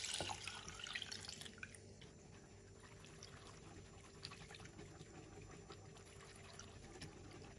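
Milk pouring into a flour-and-butter roux in a saucepan until about a second and a half in, then faint swishing and light ticks of a silicone whisk stirring the milk.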